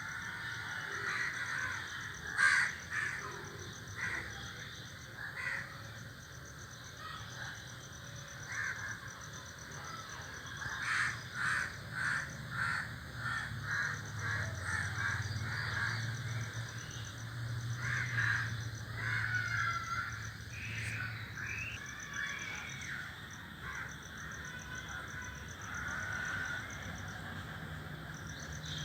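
A flock of crows cawing from a tree, many harsh calls scattered and overlapping, with a quick run of repeated caws, about two a second, from about 11 to 15 seconds in.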